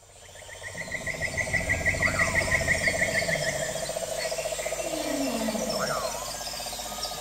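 Wildlife soundscape fading in: frogs and insects trilling, with a steady rapid pulsing trill and a higher, faster chirping trill. Two short rising-and-falling calls come about two seconds in and again near the end.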